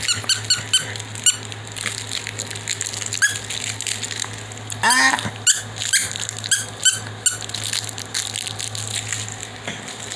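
A squeaky toy squirrel squeaking over and over as a puppy chews it. The squeaks are short and high and come in quick runs, with a louder, drawn-out squeak about five seconds in.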